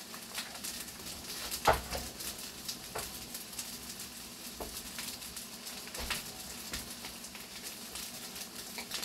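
Green beans sizzling steadily in a frying pan on a gas burner, with a few light knocks, the loudest about a second and a half in.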